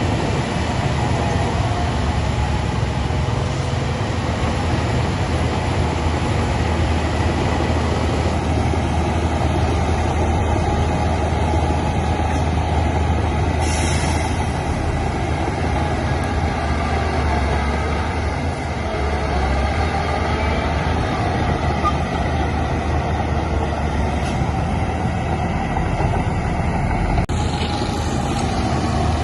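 Heavy diesel earthmoving machinery running steadily under load, a deep continuous engine rumble. A brief hiss cuts in about halfway through and again near the end.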